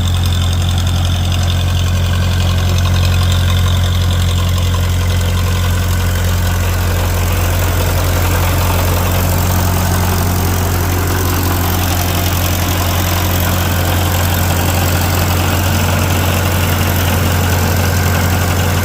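Old Ferguson tractor's engine idling steadily.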